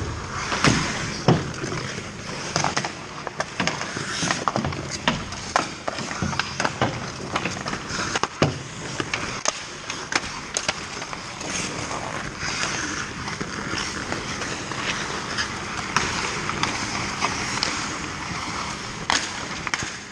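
Ice hockey skate blades scraping and carving on the ice, with frequent sharp clacks of sticks and puck, the loudest about a second in and again near the middle.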